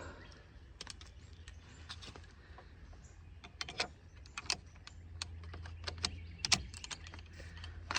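Scattered light clicks and knocks of a Mossberg 590 pump shotgun being handled and turned over, a few louder clicks in the middle, over a steady low hum.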